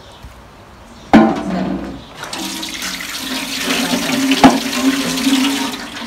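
Water running and pouring into a basin, a steady rush that starts about two seconds in, after a sharp knock about a second in.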